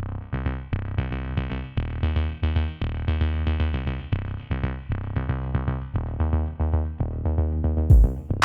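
Background electronic music with a synthesizer and a drum-machine beat.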